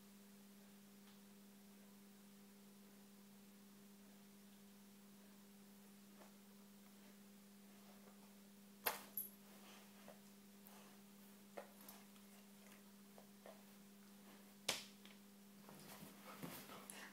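Near silence with a steady low electrical hum, broken by a pair of sharp clicks about halfway through, another sharp click a few seconds later, and a run of faint clicks and rustles near the end.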